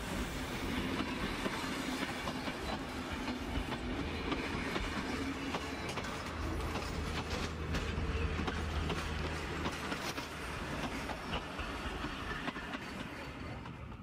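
A train of heritage passenger carriages rolling past close by, the wheels clicking and clattering over the rails and the bogies rattling. The noise eases off near the end as the last carriages go by.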